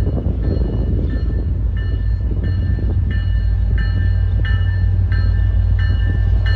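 MBTA commuter rail diesel locomotive approaching with its bell ringing about one and a half strokes a second, the bell growing louder as it nears, over the steady low rumble of the train.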